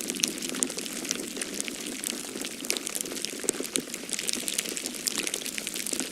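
Falling-snow ambience: a steady, dense patter of tiny random ticks and crackles over a soft low rushing hiss.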